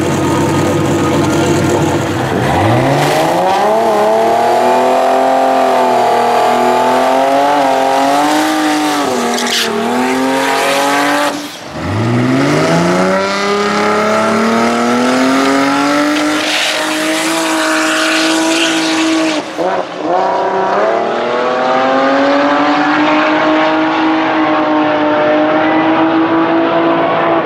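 Turbocharged 2JZ inline-six in a Honda drag car at full throttle, its pitch climbing steeply and holding high for several seconds. After a short break the engine climbs hard again, dips briefly about twenty seconds in, then holds a steady high note as it pulls away.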